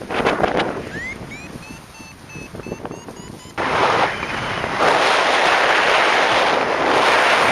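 Wind buffeting the microphone. In a lull about a second in, a paraglider's variometer beeps about three times a second, its pitch rising with each beep. The wind noise comes back loudly after about three and a half seconds.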